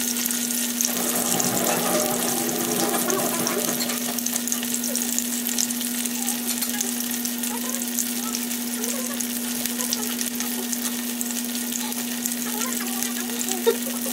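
Skinless longganisa sausages frying in hot oil in a nonstick pan, with a steady crackling sizzle over a constant low hum. There is one sharp tick near the end.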